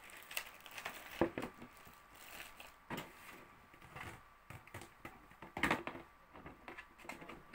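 Trixie Capri 1 hard plastic pet carrier being handled and fitted together: irregular plastic knocks and clicks, the loudest about a second in and near the end, over the rustle and crinkle of a plastic bag.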